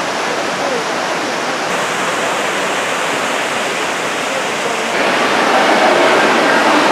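Steady rush of water pouring over a rocky cascade. About five seconds in it gives way to the louder churn of water in an indoor water-park rapids channel.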